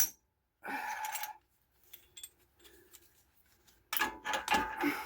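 Metal hand tools clinking and rattling as they are handled: a sharp click at the start, a short clatter about a second in, then a quicker run of clinks near the end.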